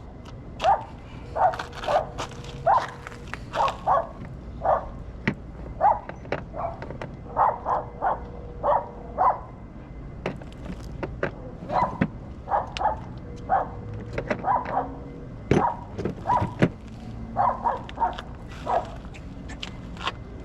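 A dog barking over and over, short barks coming in quick runs with brief pauses between them.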